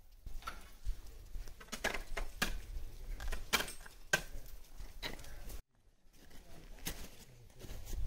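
A handful of sharp knocks and clinks, scattered irregularly and loudest near the middle, over a steady low rumble.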